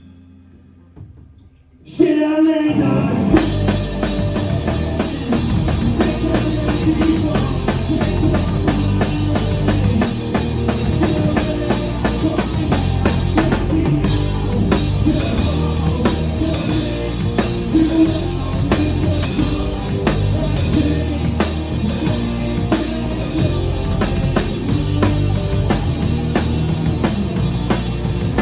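A rock song with a drum kit and bass drum keeping a steady beat starts about two seconds in, after a brief near-silent pause.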